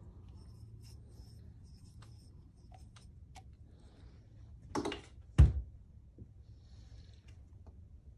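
Light clicks of metal rear-shock parts being handled, then two knocks a little over half a second apart about halfway through, the second louder with a dull thud.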